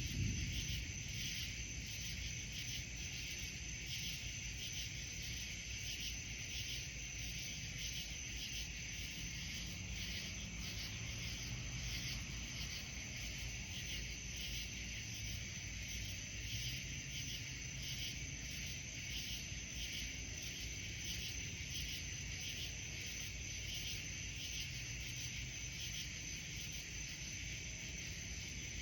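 Crickets chirping steadily in an even, pulsing rhythm over a low background rumble, with the tail of a thunder rumble dying away in the first second.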